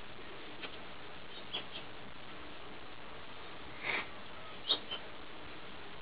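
Quiet outdoor ambience: a steady hiss with a few short, high-pitched chirp-like sounds scattered through it, the loudest about four seconds in and a sharp one just before five seconds.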